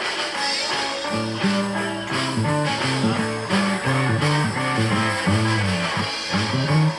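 Live blues-rock band playing an instrumental break without vocals, a guitar picking a quick run of short notes, many of them bent up and down in pitch, over the band.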